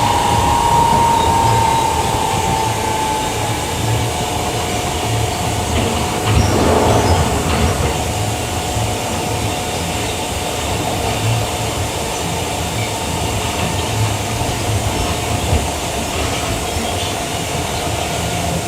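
Queensland Rail electric multiple-unit train running, heard from on board: a steady rumble with irregular wheel thumps and a steady whine that falls slightly in pitch in the first few seconds. There is a brief louder rush about six and a half seconds in.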